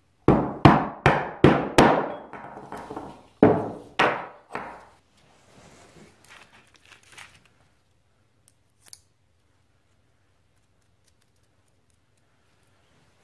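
A quick run of about five sharp knocks, then two more, from a small aluminium engine cover and parts being handled and set down on a wooden workbench. After that comes faint rustling of paper gaskets and a single tick.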